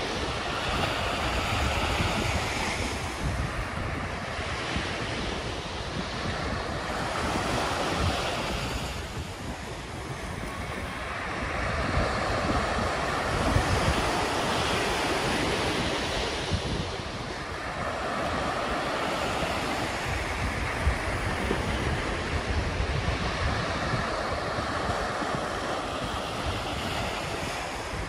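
Small waves breaking and washing up a sandy beach. The surf swells and fades every few seconds, with wind rumbling on the microphone underneath.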